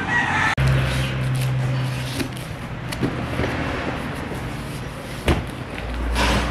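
Cardboard box being handled as parts are lifted out from inside it: rustling and scraping with scattered light knocks, and one sharper thump about five seconds in.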